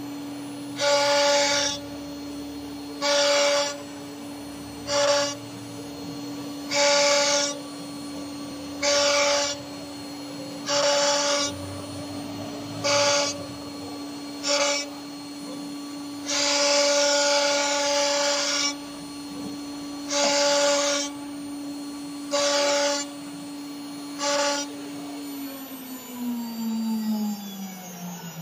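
CNC router spindle running with a steady whine while a V-bit engraves letters into MDF board. About a dozen louder cutting passes, each half a second to two seconds long, stand out over the whine. Near the end the whine falls in pitch as the spindle spins down.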